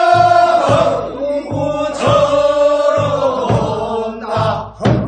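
Korean folk rice-paddy weeding song (non maeneun sori) for the second weeding round, sung by voices in a chant-like style with long held notes.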